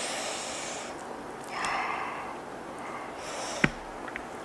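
A woman drawing three short, hissing breaths in through the mouth and nose, with a single sharp click just after the third.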